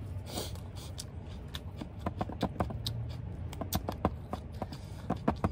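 Close-up chewing of a mouthful of spicy noodle salad with pig's ear, with an irregular run of sharp, crisp crunches from about two seconds in as the chewy-crunchy ear cartilage is bitten.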